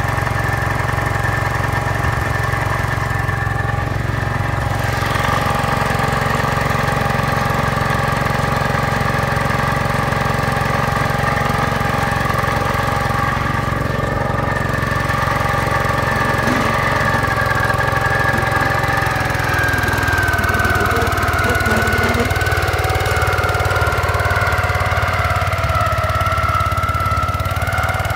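Gravely 5665 walk-behind tractor's engine running steadily, driving an MA210 snow cannon attachment. A steady high whine runs over the engine and sags slightly in pitch about two-thirds of the way through.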